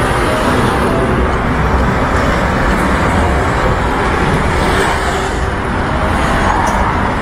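Steady city road traffic noise: a continuous rumble and hiss of cars and engines on a busy road.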